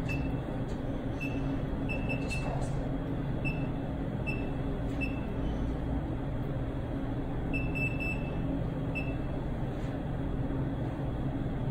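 Steady low machinery hum filling the room, with short high-pitched electronic beeps at irregular intervals, eight or nine in all.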